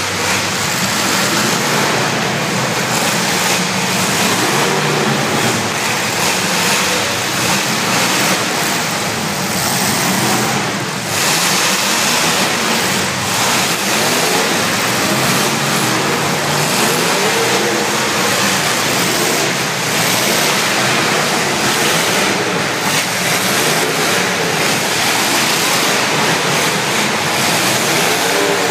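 Engines of several demolition derby cars running and revving at once, their rising and falling pitches overlapping in a loud, continuous wash of noise.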